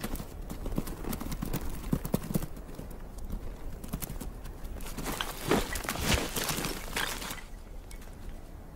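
Bharal (blue sheep) hooves clattering irregularly on rock and snow as the herd runs across a steep slope. The knocks are thickest and loudest between about five and seven seconds in, then thin out near the end.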